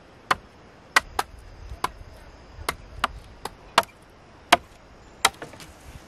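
A blade chopping dry wooden sticks: about ten sharp, irregular chops that stop about five seconds in.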